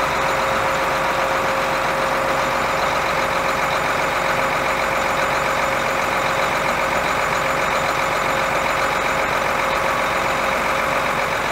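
John Deere tractor's diesel engine idling steadily, with a constant hum.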